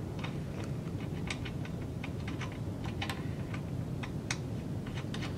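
Light, irregular metallic clicks and ticks of small nuts and washers being handled and a nut being turned by hand onto the bearing hub of a web guide actuator plate.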